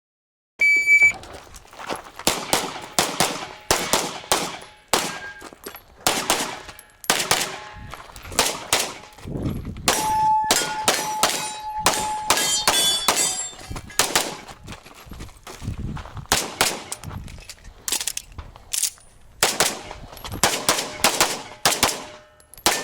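A shot-timer beep just under a second in, then a pistol fired in quick pairs and strings through a practical shooting stage, some twenty-odd shots, with metallic rings from steel targets being hit.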